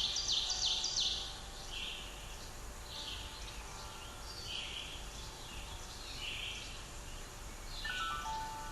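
Forest birds calling, short bright chirping calls repeated roughly once a second, with a quick run of stepped notes in the first second. Background music comes back in near the end.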